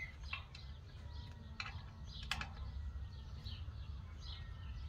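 Small birds chirping faintly over a steady low rumble, with a few sharp clicks from satellite dish bracket parts and screws being handled; the sharpest click comes a little past two seconds in.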